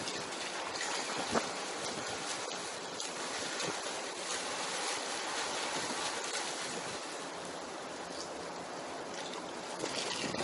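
A steady rush of splashing water, from a swimmer's strokes churning the water of a deck swimming pool, with wind.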